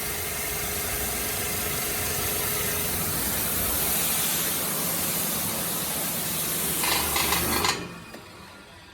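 High-pressure washer with a 7.5 kW motor running at 3600 PSI, its water jet spraying in a steady loud hiss over the motor's hum. Near the end it gives a brief rapid stutter, then the spray cuts off suddenly and the level drops.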